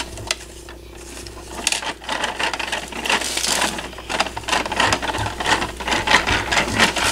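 Rapid plastic clicking and rattling from a Bruder toy side-loading garbage truck's compactor as its hand crank is turned, driving the garbage down into the body. The clicking is sparse at first, then thick and fast from about two seconds in.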